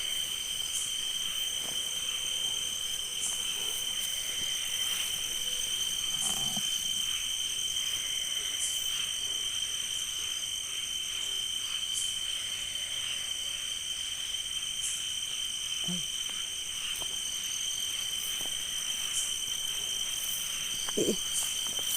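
Crickets chirring in a steady, continuous high-pitched trill, with a few faint scattered clicks over it.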